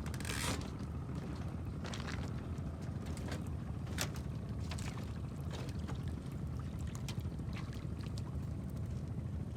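Rain starting to fall: a steady low rumble with scattered sharp ticks and taps.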